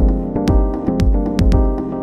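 Background music: sustained keyboard and synthesizer chords over a steady low beat of about two thumps a second.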